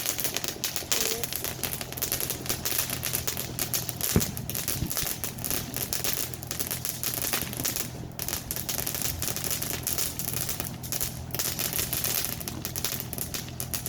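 Many small firecrackers going off in rapid, unbroken succession, a dense crackling that keeps going, with one louder pop about four seconds in.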